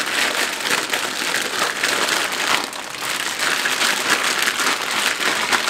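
Zip-top plastic bag crinkling steadily as it is squeezed and kneaded by hand to work a marinade into beef flank steak inside it.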